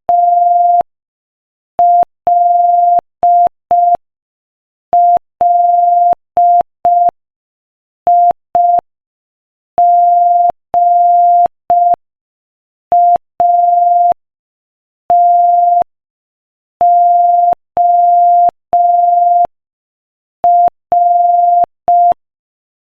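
Morse code practice tones sent at 5 words per minute: a single steady beep keyed on and off in short dots and longer dashes, with longer pauses between letters.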